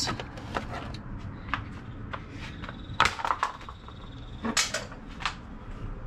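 Scattered light clicks and knocks of a hand handling a plastic engine-bay cover panel, about half a dozen, the sharpest about three seconds in.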